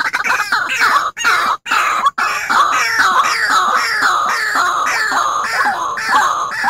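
White-breasted waterhen (ruak-ruak) lure recording: a long, loud run of harsh, repeated notes, about two or three a second, each sliding slightly downward. The sound cuts out briefly twice, about one and a half and two seconds in.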